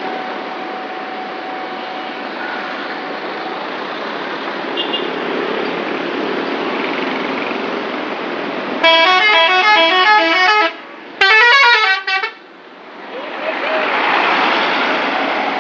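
Bus's multi-tone 'telolet' musical horn playing a short stepping tune about nine seconds in, a brief pause, then a second shorter burst, over steady road noise. A swell of road noise follows near the end.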